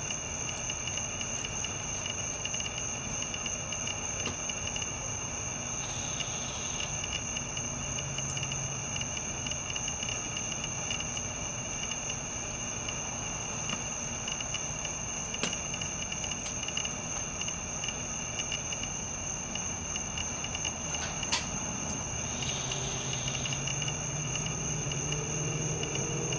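Crickets trilling steadily at a high pitch, with a single faint click a little after the middle.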